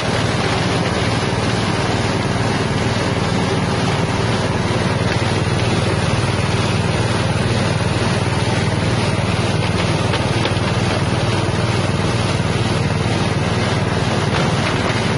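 A 6.5 hp engine running steadily, driving a spice-grinding mill under load as ground material pours out of the discharge chute.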